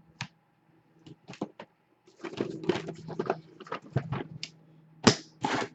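Trading cards and their packaging being handled: a single click near the start, then irregular rustling and scraping, with a sharp click about five seconds in.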